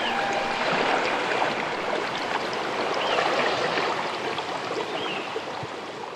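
Steady rushing, flowing-water sound like a stream, fading out gradually near the end.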